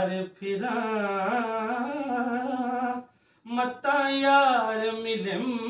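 A man singing a Sufi kafi solo in long, drawn-out, wavering melismatic notes, breaking off briefly twice.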